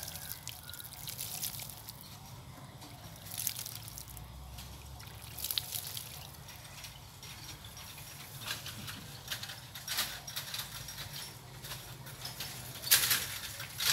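Water pouring from a metal watering can's spout onto the potting mix of a potted desert rose, with irregular splashing and crackling as it soaks in. Near the end there is a louder short burst of noise as the soil and plant are handled.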